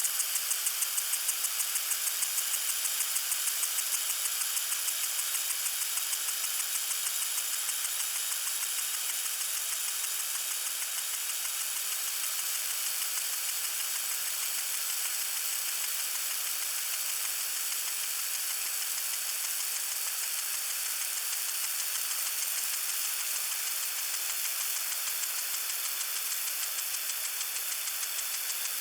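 Lawn sprinkler spraying water: a steady hiss with fast, even ticking running through it, a little stronger in the first few seconds.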